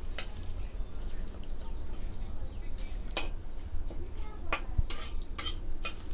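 Metal spatula scraping and clinking against a metal kadai, several irregular strokes, while bay leaves are stirred in hot mustard oil.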